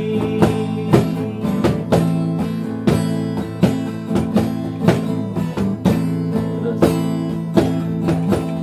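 Acoustic guitar strummed in a steady rhythm, about two strums a second: the instrumental break of a song, with no singing.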